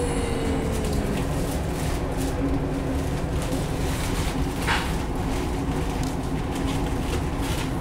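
Running noise inside a passenger train carriage at speed: a steady rumble of the wheels on the track with a low steady hum and faint regular clicks. A brief higher sound comes about two-thirds of the way through.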